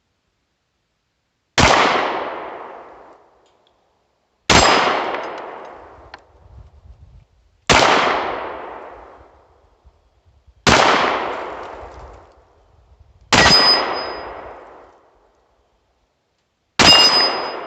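Six shots from a Sccy DVG-1 9mm pistol, fired slowly about three seconds apart, each followed by ringing that dies away over a second or two. The gun fires every round without a jam after its feed ramp was polished and its magazine followers deburred.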